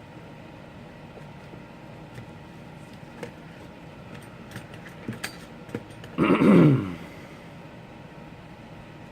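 Small scattered clicks of prying tools working at an iPhone 4's glued-down screen, then a short vocal groan falling in pitch, the loudest sound, over a steady background hum.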